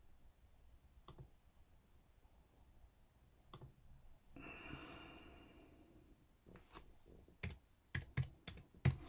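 Keystrokes on a computer keyboard while a file name is typed: a couple of isolated key presses, then a quicker run of about eight clicks near the end. A soft breath-like exhale in the middle.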